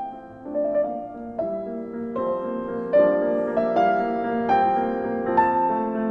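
Background music played on piano: a run of notes and chords, with new notes struck every half second or so.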